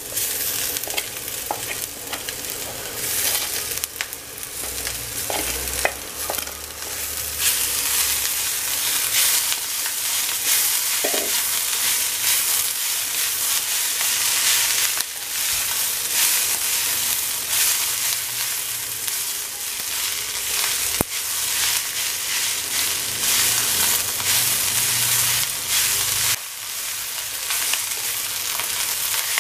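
Clam meat frying in coconut oil with a shallot and spice masala, a steady sizzle that grows louder about seven seconds in, with the scrape of a wooden spatula stirring it around the pan.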